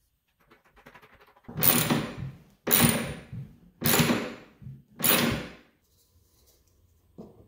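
A ratchet wrench tightens a bolt that fixes a steel drawer track to a plywood drawer side. Four rasping strokes come about a second apart, after some faint clicks as the tool is fitted.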